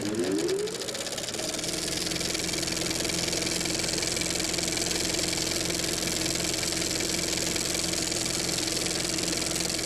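Off-road motorcycle engine revving up over the first second, then running steadily.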